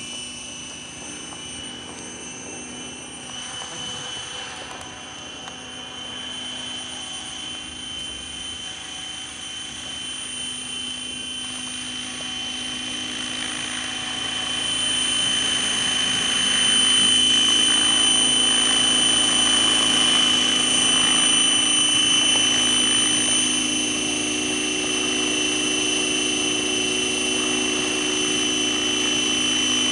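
Scale model MD500 helicopter flying, with a steady high whine and rotor sound. It grows louder about halfway through as the helicopter comes in close and hovers low.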